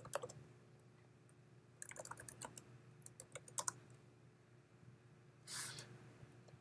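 Faint typing on a computer keyboard: a few keystrokes at the start, then two short runs of key clicks around two and three and a half seconds. Near the end there is a brief soft rush of noise lasting about a third of a second.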